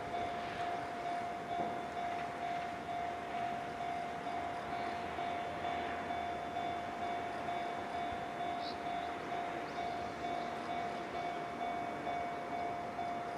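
Japanese railway level-crossing warning bell ringing, a single electronic tone repeating at an even pace, the signal that a train is approaching and the barriers are down. A steady rushing noise runs beneath it.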